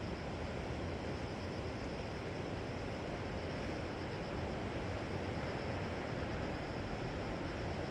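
Steady wash of sea surf on the shore, an even rushing noise with no single wave standing out, mixed with wind.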